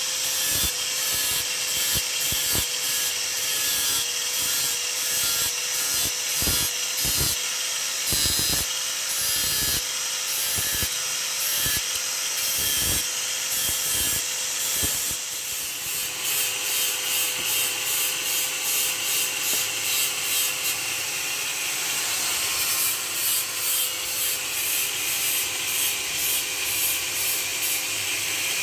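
Handheld angle grinder running with a steady whine while its abrasive disc sands a wooden handle, with irregular scraping strokes as the wood is pressed against the spinning disc. In the second half, the grinding pulses about twice a second.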